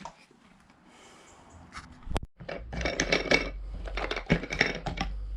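Hard plastic spa-pump parts being handled and knocked together: a sharp click about two seconds in, then busy clattering and rubbing.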